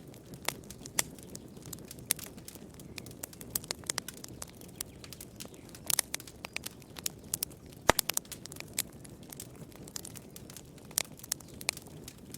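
Campfire crackling: irregular sharp pops and snaps of burning wood over a low, steady rush of flames, with a couple of louder pops near the middle.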